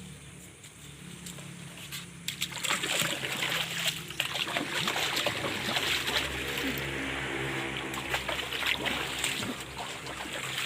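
Water splashing and sloshing, starting about two seconds in and going on in a busy run of small splashes, as the ditch water is disturbed.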